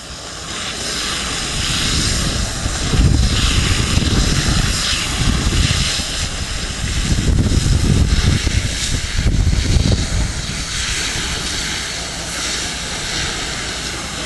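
Fire hose nozzles spraying water jets: a steady rushing hiss, with low irregular rumbling surges from about three to ten seconds in.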